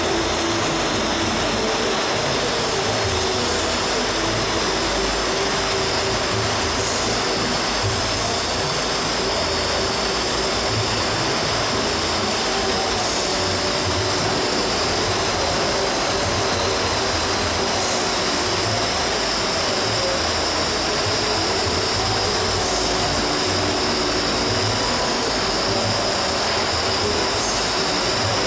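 Gas tungsten arc (TIG) welding arc burning on an Inconel 625-clad API 5L pipe joint, with nickel-alloy filler rod fed into the puddle: a continuous, even hiss.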